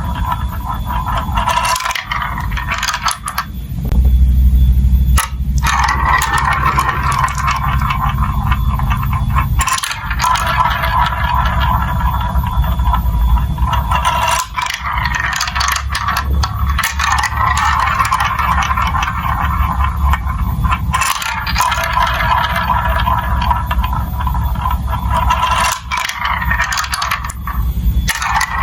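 Marbles rolling and clattering along a plastic building-block marble-run track: continuous rattling full of small clicks over a low rumble, which swells briefly about four seconds in.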